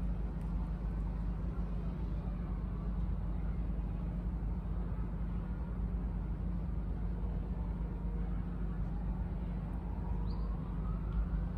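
Steady low rumble of city traffic. Near the end a distant emergency-vehicle siren starts, its wail rising in pitch.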